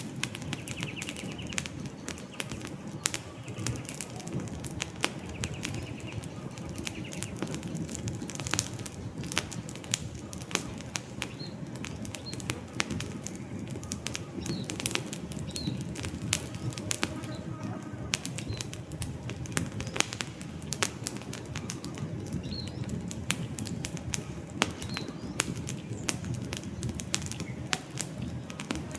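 Wood campfire crackling, with frequent irregular sharp snaps and pops over a steady low rush of burning flames. A few faint, short, high bird chirps come now and then.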